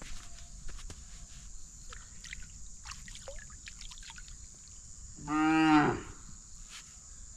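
A single loud animal call, lasting under a second, a little over halfway through, over a steady high hiss and faint scattered clicks.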